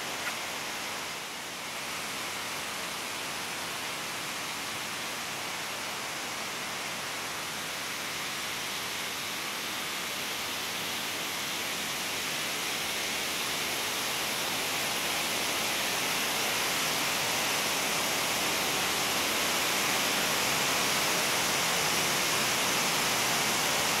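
Small, wide waterfalls and shallow cascades of a mountain stream pouring over flat bedrock: a steady rushing hiss of falling water that grows gradually louder over the second half.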